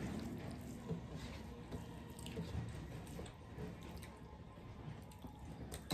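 Quiet, soft squishing and small clicks of fingers mixing rice and curry on steel plates, with some chewing.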